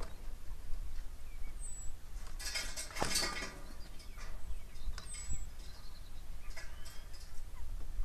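A burst of wing flapping and scuffling on the stick nest about two and a half seconds in, as crows land and a common kestrel flies off it. A small bird's short high falling note repeats every couple of seconds over a low wind rumble on the microphone.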